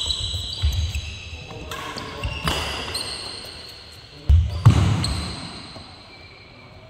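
Badminton doubles play: sharp racket strikes on the shuttlecock and short high squeaks of court shoes, with two loud knocks close together about four and a half seconds in.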